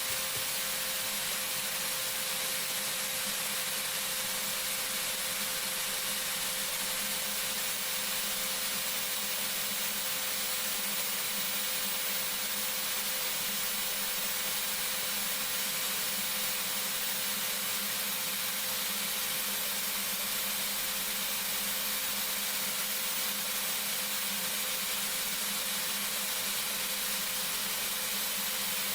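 Portable bandsaw running steadily, a constant motor whir and blade hiss with a steady hum. It holds the same level throughout, with no sign of the blade biting into a cut.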